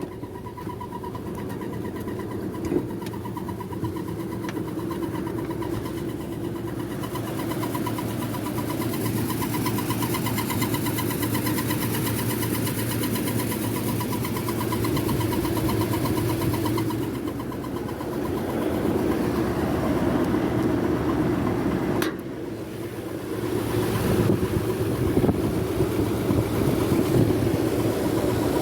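2007 Nissan Armada's 5.6-litre V8 running, with a thin whine over the engine and road noise. The whine is the noise that comes on and grows louder under acceleration and stops when the gas is released; its cause is unknown to the owner.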